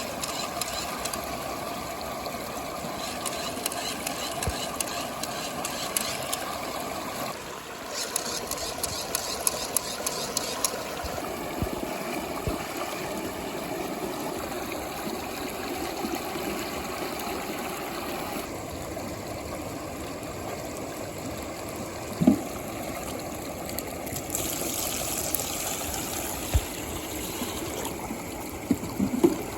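Water swirling and bubbling in a plastic tube, a steady rushing with a few short sharp pops about two-thirds of the way in and near the end.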